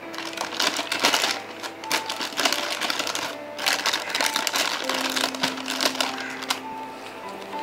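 Crisp packet crinkling and crackling in a rapid run of sharp rustles, coming in spells with short pauses, with faint music underneath.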